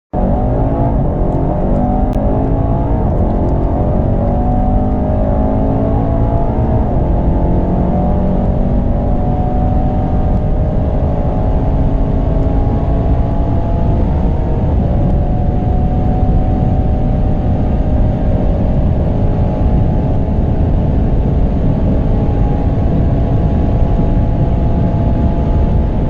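Twin-turbo V8 performance sedan accelerating hard at full throttle: a slowly climbing engine note with several upshifts.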